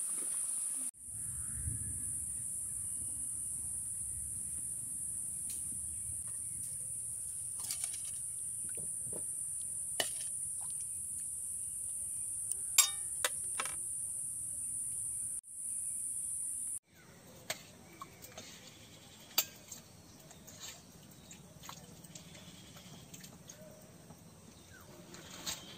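A steady high-pitched hiss for the first two-thirds, then a series of sharp metallic clinks and knocks as a steel ladle scoops potato curry from a steel pot into a steel bowl.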